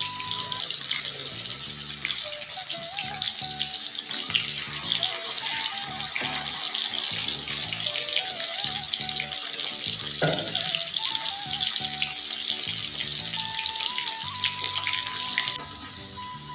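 Marinated small tuna pieces deep-frying in hot oil in a kadai: a steady sizzling hiss full of small crackles and pops, which cuts off sharply near the end.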